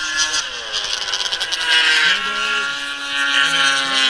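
600-class racing snowmobiles with two-stroke engines running at high revs as they pass on the ice oval; one sled's pitch drops in the first half second as it goes by, then a high, steady engine note from the pack holds.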